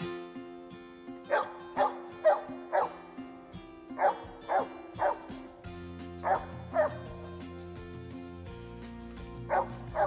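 Dogs baying at a cornered young whitetail buck: sharp barks in quick runs of two to four, about two a second, with pauses between the runs. Guitar music plays under them.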